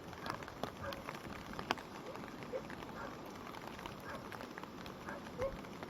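Rain-swollen stream running, a steady rush of water with scattered small splashes and ticks. A few short faint calls come through now and then.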